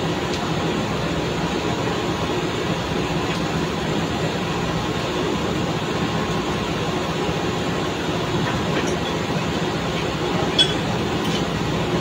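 Drilling rig floor machinery running steadily, a loud mechanical drone with a few steady tones in it. A single sharp metallic clink near the end.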